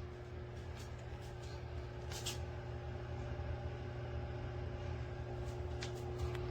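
Electric fireplace heater running with a steady fan hum and a constant droning tone. Scattered soft clicks through it are the crackle of its built-in log-fire sound effect.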